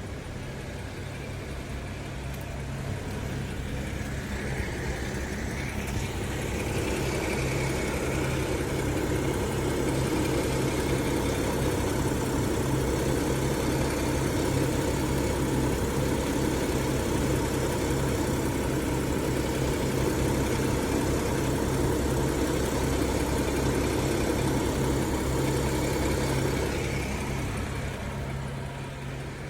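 BMW 535i xDrive making the odd noise its owner is recording over a steady low engine hum. A mid-pitched droning noise builds over a few seconds, holds steady, then fades away near the end.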